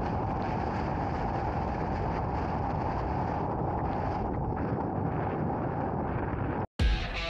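Wind blowing across the camera microphone, a steady rush of noise. Near the end it cuts off abruptly, and a guitar music track with heavy beats starts.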